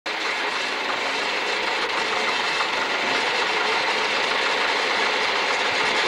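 Backhoe engine running steadily at idle.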